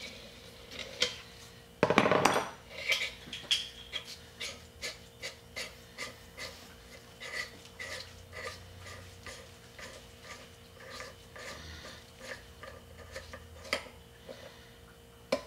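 Metal clinking and clicking as the heated threaded bearing retainer in a vintage Honda rear wheel hub is levered loose with a steel bar across two bolts used as pins, then unscrewed by hand. A loud clatter about two seconds in, then a run of light, separate metallic ticks.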